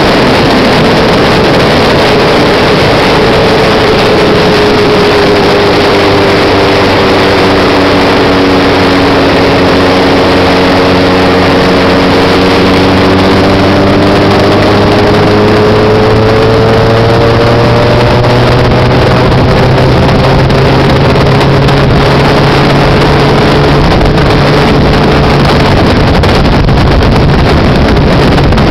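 Honda CBX 750's air-cooled inline-four engine running loud and steady, its pitch sagging slightly through the middle and climbing back over several seconds.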